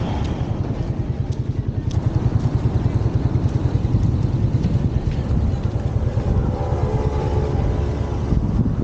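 Low, fluttering rumble of a passing motor vehicle's engine, with its engine tone clearest from about six to eight seconds in.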